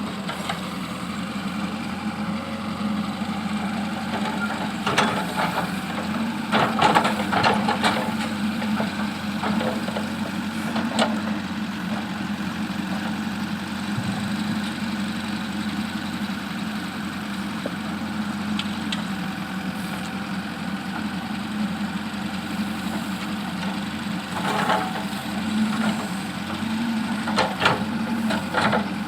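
JCB backhoe loader's diesel engine running steadily, with clusters of knocks and scraping from the bucket working stones, heaviest about a quarter of the way in and again near the end.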